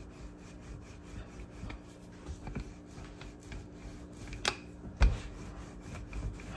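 Wooden rolling pin rolling dumpling dough out on a floured countertop: soft rubbing and scraping strokes, with a couple of sharp knocks of the pin on the counter about four and a half and five seconds in.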